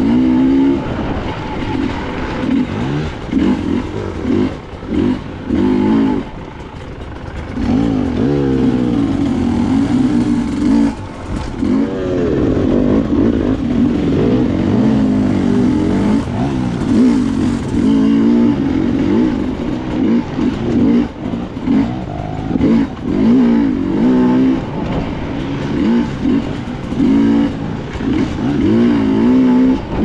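Dirt bike engine revving up and down over and over as it is ridden on a trail, its pitch rising and falling with the throttle. It eases off briefly about six to eight seconds in.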